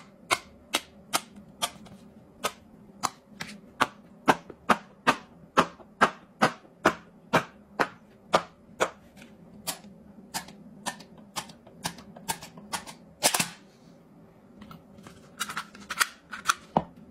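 Silicone pop-it fidget toy bubbles being pushed in one after another, each giving a sharp pop, about three a second. A louder pop comes about 13 seconds in, then a short pause and quicker, softer pops near the end.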